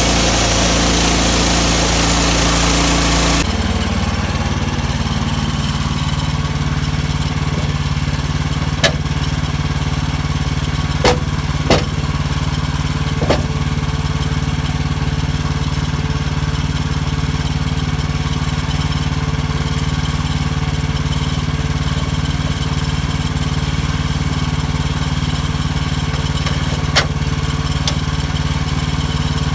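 Sawmill's small gas engine running steadily, with a loud hissing layer over it that cuts off suddenly about three and a half seconds in. A few sharp knocks come through, three of them close together about a third of the way through and one near the end.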